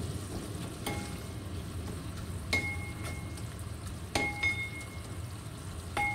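Bracken being stir-fried with a wooden spoon in a heavy pot: a steady frying sizzle under the stirring, with four short knocks that ring briefly, about one and a half seconds apart.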